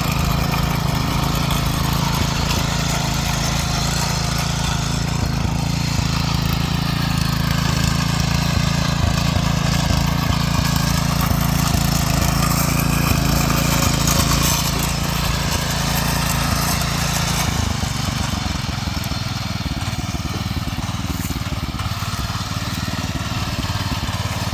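Motor hoe (small walk-behind tiller) engine running steadily as it works the soil with a three-tine goose-foot cultivator attachment; its note shifts and drops a little about three-quarters of the way through.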